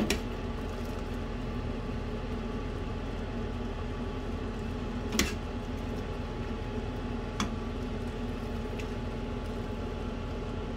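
Chicken soup boiling in a stainless steel stockpot on a gas stove: a steady bubbling hiss over a low hum. A metal ladle clinks against the pot three times, loudest about five seconds in.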